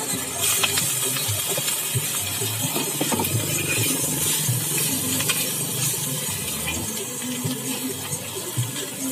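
Sizzling in a steel wok over a gas flame as egg and then greens are stir-fried, with a metal spatula and ladle scraping and clinking against the pan.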